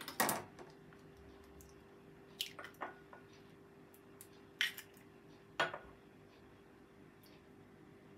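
A brown egg being cracked and opened into a small glass bowl: a handful of short, sharp clicks and clinks of shell and glass, spread over several seconds.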